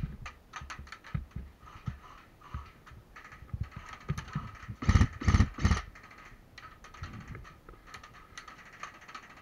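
Scattered, irregular clicks and knocks from an airsoft game, with a short run of louder thuds about five seconds in.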